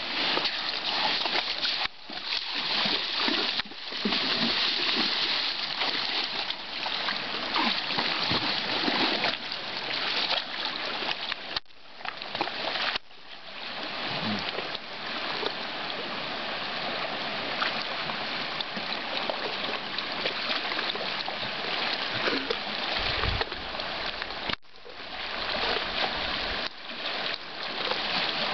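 Water splashing and sloshing as a mule wades chest-deep through a creek, a steady rushing wash broken off abruptly in several places.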